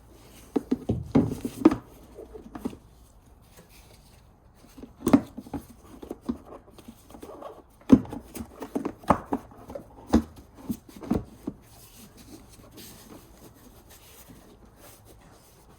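Plastic battery cover on a Mercedes C-Class W204 being worked back into place by hand: irregular clusters of knocks and rattles, the last of them about eleven seconds in.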